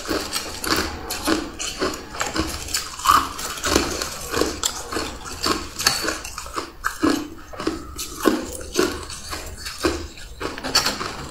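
Hard ice being bitten and crunched between the teeth, sharp cracking crunches coming irregularly about twice a second, with pieces of ice clinking against each other.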